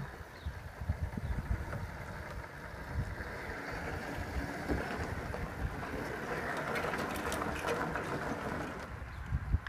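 Electric drive motors of a remote-controlled motorized couch running as it drives over gravelly ground, a steady mid-pitched noise that grows louder through the middle and falls away near the end. Gusts of wind rumble on the microphone throughout.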